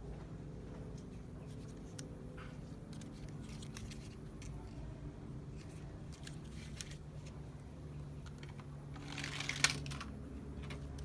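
Light clicks and rattles of plastic toy vehicles being handled, over a steady low hum. About nine seconds in comes a louder scraping rustle that ends in one sharp click.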